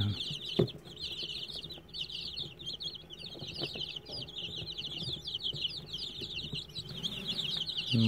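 A brood of young Aseel chicks peeping continuously, many rapid high peeps overlapping. There is a single short knock about half a second in.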